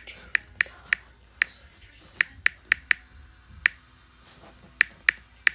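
Key clicks from an iPad's on-screen keyboard as a message is typed: about a dozen short, sharp ticks at an uneven typing pace, some coming in quick runs.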